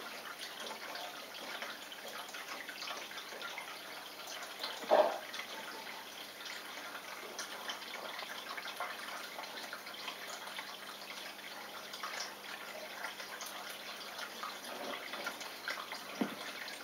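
Water trickling and dripping steadily in a turtle tank, with one brief louder sound about five seconds in.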